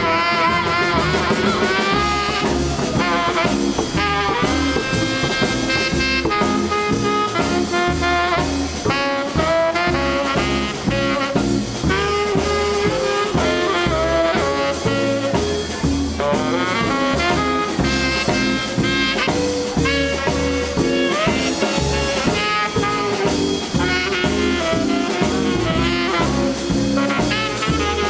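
Live swing band playing an instrumental break with a tenor saxophone lead over guitar, bass and drums, with a steady swinging beat.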